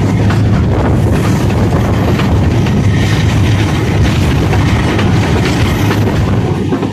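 Passenger train running at speed, heard from an open coach doorway: a loud, steady low rumble with the wheels clattering on the rails.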